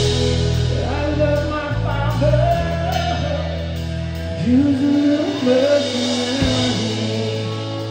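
Live band music: a male voice sings a slow, wavering melodic line over sustained electric guitar and bass chords, with no drums playing.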